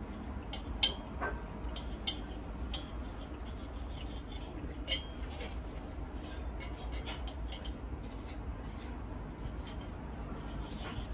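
Knife and fork cutting through a thick steak, clinking and scraping against the plate in scattered sharp ticks, the loudest about a second in.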